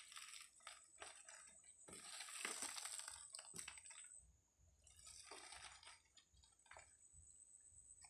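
Faint rustling and crinkling of newspaper packing and plant stems as they are handled in a cardboard box, in three or four short irregular bursts with small crackles.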